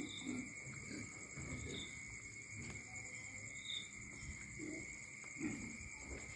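Crickets trilling steadily in two high pitches. A few brief, soft low sounds break in, the loudest at the very start and about five and a half seconds in.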